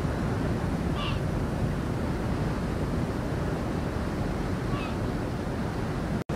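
Steady rush of wind and sea water heard from the deck of a moving ferry. A gull gives a short call twice, about a second in and again near the end.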